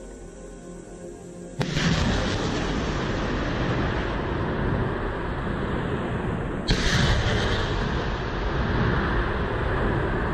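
Soft music, then a sudden loud blast about one and a half seconds in as a missile is fired from a mobile launcher, its rocket motor rushing on without a break. A second sharp blast cuts in about seven seconds in.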